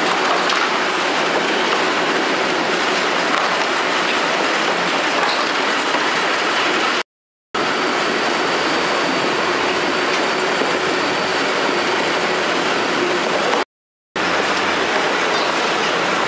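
Conveyor machinery of a cucumber packing line running: a steady, dense mechanical noise with no distinct beat. It cuts out to silence twice briefly, about seven seconds in and again near the end.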